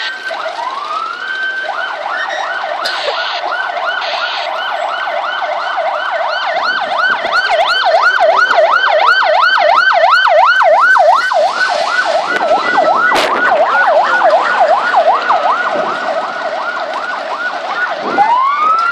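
Fire truck sirens in a fast yelp, sweeping up and down about two or three times a second and growing louder toward the middle. A slower wail rises at the very start and again near the end.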